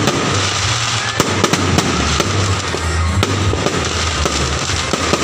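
Fireworks display going off in a dense barrage: aerial shells bursting with many sharp bangs over continuous crackling.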